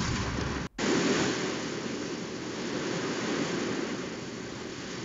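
AI-generated sound of ocean surf: waves breaking on rocks as a steady rushing noise. It follows a brief low vehicle engine hum that cuts off abruptly under a second in.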